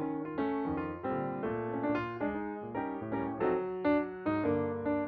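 Background piano music, with notes and chords struck about two to three times a second.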